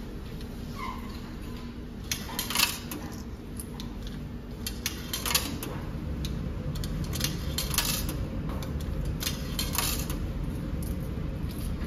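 100-yen coins fed one after another into the coin slot of a coin-operated clothes dryer, each dropping through the mechanism with a sharp metallic clink. A steady low hum runs underneath.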